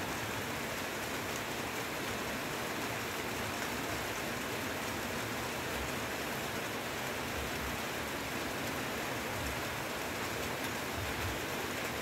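Heavy rain falling steadily on forest foliage, an even hiss with no let-up, with a few soft low thuds scattered through it.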